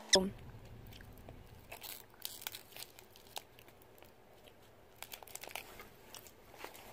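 Chewing and biting into a Clif coconut chocolate chip bar, with faint crunches and the odd crinkle of its foil wrapper now and then. A brief sound falling in pitch, the loudest thing, opens it.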